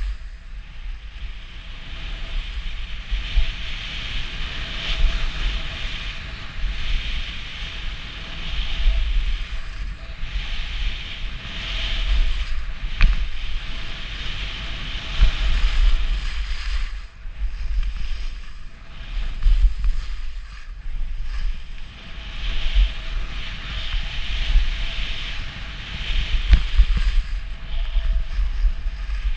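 Skis carving turns at speed on groomed snow: the edges' hiss and scrape swells and fades every few seconds, over a constant low rumble of wind buffeting the action camera's microphone.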